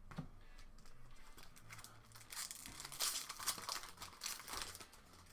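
Foil trading-card booster pack wrapper crinkling and tearing as it is pulled open by hand, in a run of crackles over the second half.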